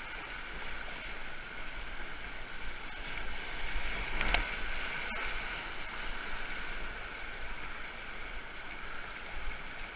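Rapids rushing and splashing against a canoe's bow as it runs fast river water, with one louder splash over the bow about four seconds in.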